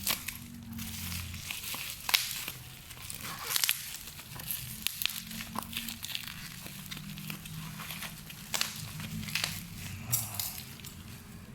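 Gift packaging being crinkled, crumpled and torn open by hand in irregular rustling crackles, with a few louder crackles along the way.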